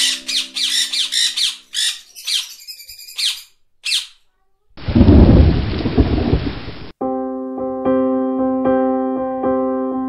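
Background soundtrack: rapid bird calls over sustained music tones, a short pause, then a burst of thunder-and-rain noise about halfway through that cuts off suddenly. It is followed by evenly repeated piano-like notes, about two to three a second.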